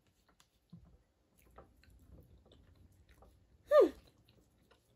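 A person chewing a bite of chicken: faint mouth clicks and small crunches. About four seconds in comes one short, loud vocal sound that falls in pitch.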